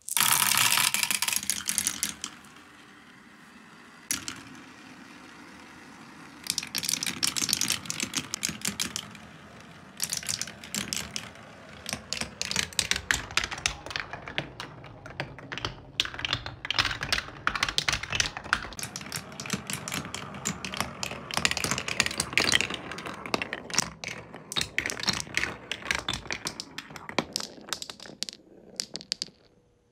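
Marbles running through a Quadrilla wooden marble run: a loud rattle as a handful drops into the plastic funnel and tube, then rolling and fast, dense clicking as they run around the wooden spiral slopes and rails. The clicking stops just before the end.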